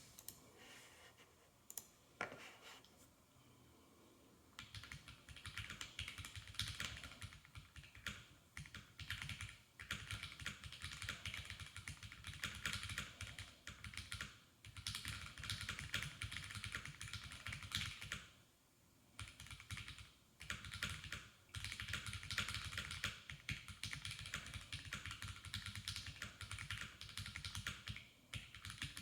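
Typing on an IDOBAO ID67 Crystal mechanical keyboard with lubed and filmed Banana Split linear switches, a polycarbonate plate and GMK keycaps. A few single keystrokes, then a fast, continuous run of typing from about four seconds in, broken by a few short pauses.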